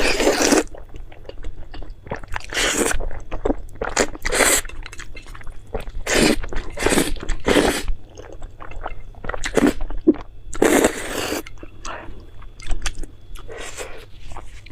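Close-miked eating: a person biting and chewing food in a series of short, irregular bites and chews, often a second or less apart.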